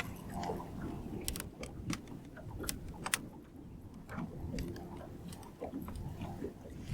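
Irregular sharp clicks and light rattles from fishing rod and reel handling, over a low wind rumble on the microphone.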